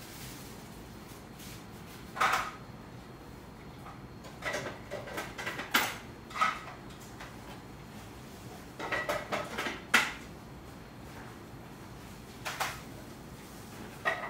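Cutlery clinking and scraping against a plate in short scattered clusters, each clink ringing briefly, over a low steady room background.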